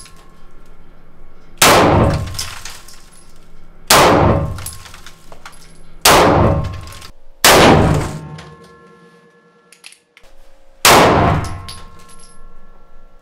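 Handgun shots fired in an indoor range: five single shots, one to two seconds apart with a pause of about three seconds before the last, each echoing off the concrete-block walls.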